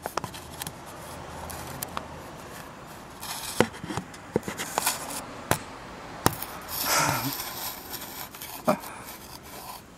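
Scattered light clicks and knocks of things being handled, with a short rustling scrape about seven seconds in.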